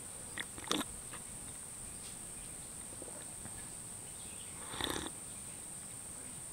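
Insects droning steadily at a high pitch, with a couple of faint short clicks near the start and a brief rustle about five seconds in.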